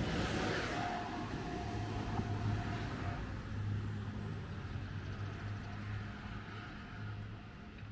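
A vehicle passing and moving away, its steady low hum and rushing noise fading gradually.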